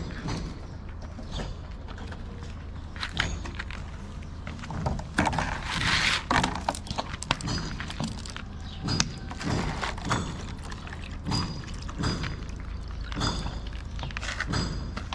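Cat chewing dry kibble close to the microphone: a run of small crunches and clicks, with a louder noisy rustle about six seconds in and a steady low hum underneath.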